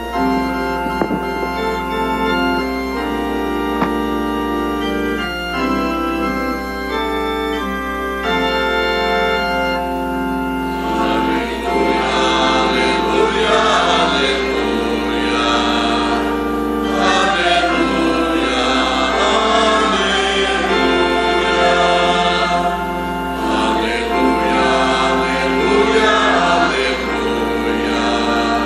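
Church choir with organ performing a Mass hymn: the organ plays held chords as an introduction, and the choir comes in singing about ten seconds in.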